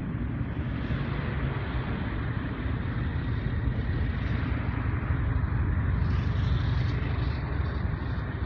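Steady low rumble of racing engines from the drag strip next to the airfield, growing a little louder about six seconds in.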